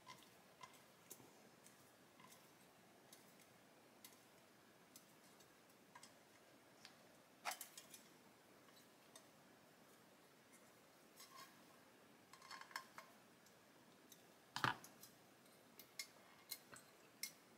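Mostly near silence with faint, scattered clicks and taps from a small precision screwdriver driving a tiny screw into a scale-model door-handle assembly and from the model door being handled. The loudest is a single knock near the end.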